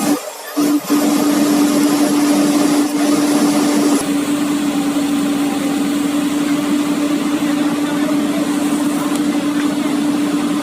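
Excavator's diesel engine running steadily, a constant hum over a broad rush of mechanical noise, after a choppy start in the first second.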